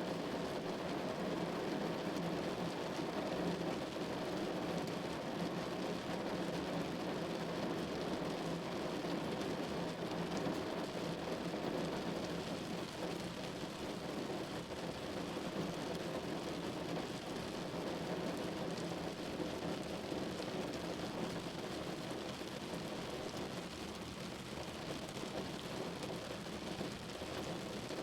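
Steady rain falling, an even hiss with faint scattered drop ticks, holding at the same level throughout.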